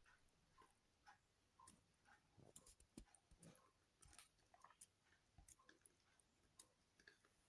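Near silence broken by faint, irregular clicks and taps, typical of a chicken pecking at a radish.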